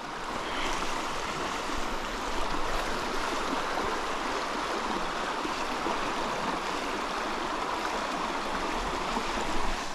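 Trout stream water rushing and splashing over riffles, a steady, even rush.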